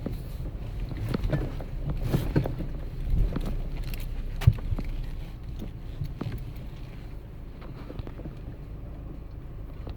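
Van driving slowly over a rough dirt road: a steady low rumble with irregular knocks and rattles as it jolts over bumps, the loudest jolt about halfway through.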